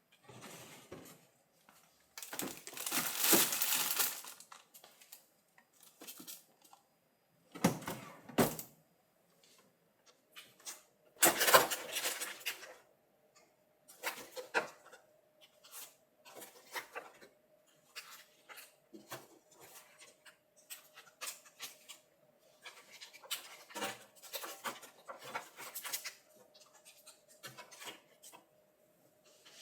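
Household items being handled: plastic rustling or tearing, with small clicks and clinks of containers and dishes. A faint steady hum comes in about halfway through.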